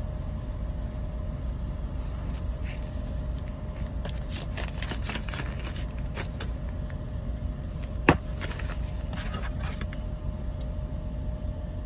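Light rustling and clicking of a small hobby servo and its wires being handled on a hardboard bench, with one sharp click about eight seconds in, over a steady low hum.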